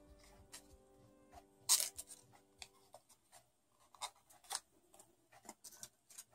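Colored origami paper rustling and crackling in short, scattered bursts as paper petals are handled and curled around a wooden stick, the loudest crackle about two seconds in.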